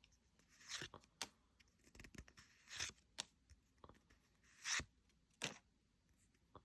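Pokémon card booster pack's foil wrapper being torn open and the cards handled: four short, faint rips and swishes with light clicks between them.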